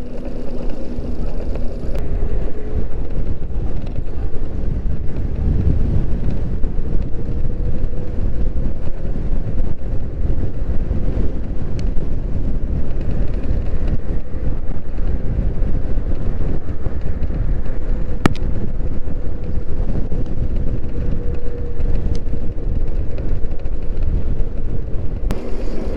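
Wind rushing over the microphone and road noise from an Onyx RCR electric moped under way, with a faint steady whine throughout. A single sharp click comes about 18 seconds in.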